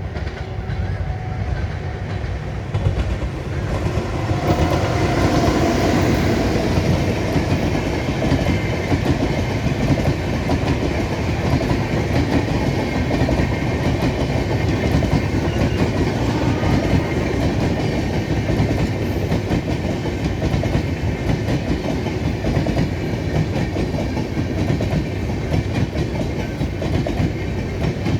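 Indian Railways express passenger train hauled by a WAP-7 electric locomotive rolling through a station. The coach wheels clack over the rail joints in a steady, loud rumble that swells about four seconds in.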